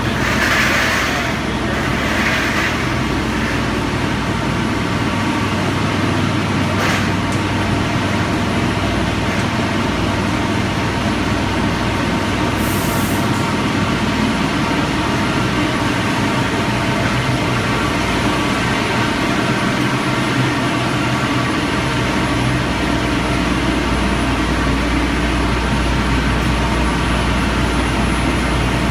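Food-processing line machinery running: a shaker conveyor and an incline conveyor make a loud, constant mechanical din with several steady tones. A deeper low rumble joins about two-thirds of the way through.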